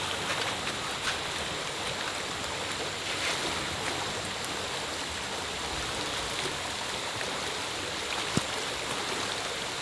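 Steady hiss of light rain falling on the leaves and the pickup, with a faint steady high tone over it. One small click about eight seconds in.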